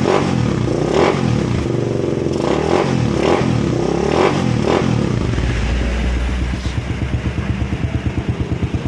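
Motorcycle engine breathing through a gutted (decanned) stock exhaust pipe: the throttle is blipped several times in the first five seconds or so, then the engine settles to an idle with a quick, even pulsing beat.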